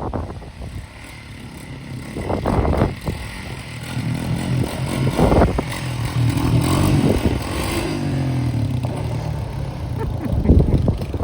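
Quad (ATV) engine revving and accelerating, its pitch rising and falling as the rider pulls a wheelie. It gets louder about four seconds in.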